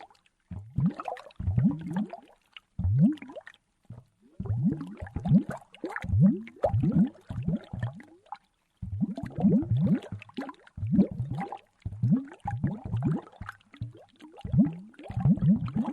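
Bubbles heard underwater, coming in bursts of quick blips that each glide upward in pitch, with short pauses between the bursts.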